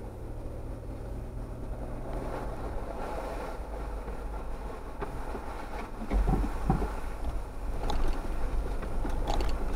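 Jeep crawling slowly along a rutted, snow-covered off-road trail: a steady low engine and drivetrain rumble, getting louder about six seconds in, with a few knocks as the vehicle goes over bumps.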